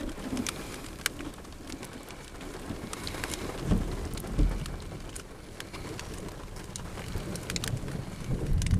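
Thunderstorm rain falling, with scattered drops ticking sharply close by. Low thunder rumbles come around four seconds in, and a louder rumble builds near the end.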